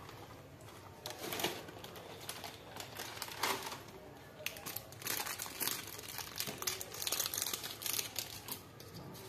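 Crinkling of a plastic snack bag and a small plastic wrapper being handled and opened, in irregular crackling bursts that grow busier in the second half.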